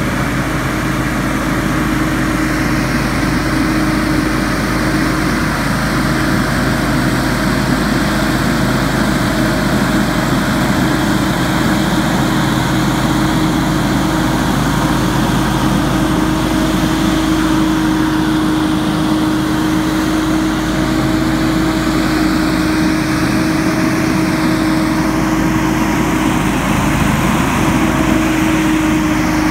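Hurricane X3 stand-on leaf blower running as it blows leaves, its engine and fan giving a steady drone with a strong, even hum.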